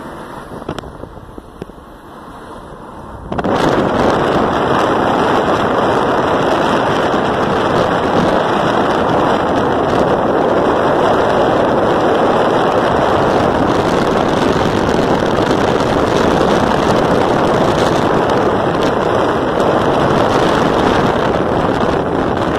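Inside a moving car, low road noise gives way about three seconds in to a sudden loud, steady rush of wind through the open side window, buffeting the microphone.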